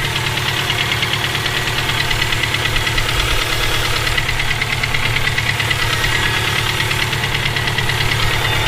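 Subaru EJ257 2.5-litre turbocharged flat-four running steadily with a fast, even knock or tick. The owner cannot tell whether it is rod knock from a spun bearing or valve lash that needs adjusting.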